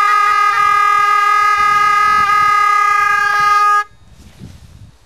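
A pair of gyaling, the Tibetan double-reed oboes, play a final long held note. Quick ornamental flicks in the first half second give way to one steady note, and both stop together about four seconds in, ending the piece.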